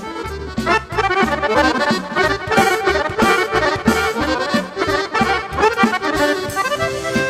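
Piano accordion playing a fast instrumental passage in a Balkan folk song, with quick runs of notes over a bass line.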